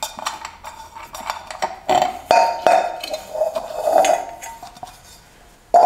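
Air cleaner cover of a Kohler K321 engine being worked off by hand: a run of sharp clicks and scrapes, with some ringing at its busiest about two to four seconds in.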